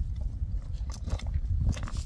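Chopping blows of a short-handled hand tool on a wooden pole: a few sharp knocks about a second in and again near the end, over a steady low rumble.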